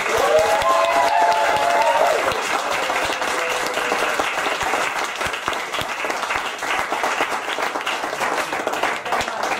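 Audience applause: many people clapping, with a few voices whooping in the first two seconds. The clapping eases slightly towards the end.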